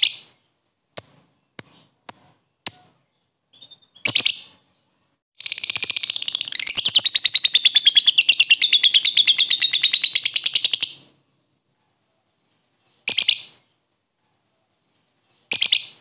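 Lovebird calling: several short, sharp chirps, then a long, very rapid chattering trill lasting about five and a half seconds (the 'ngekek'), then two more short calls near the end.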